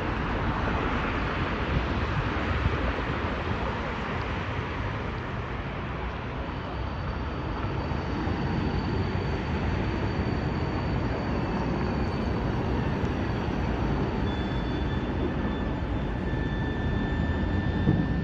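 Train running along the track: a steady rumble and rush, with faint high steady whines that come in partway through.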